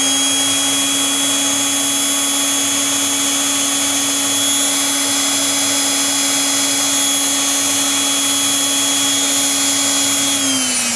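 Brushed motor of an electric planer, converted into a small rotary grinder with a chuck, running unloaded at very high speed with a steady whine. It is powered by a homemade 60 Hz DC-to-AC inverter. Near the end it is switched off and its pitch falls as it winds down.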